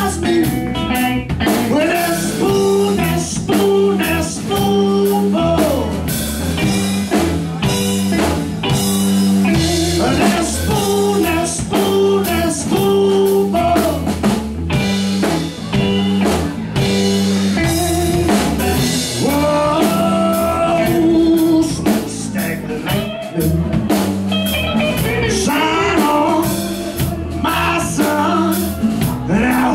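Live blues-rock band playing: a man singing over electric guitar and a drum kit, with a repeating riff and steady cymbal strokes.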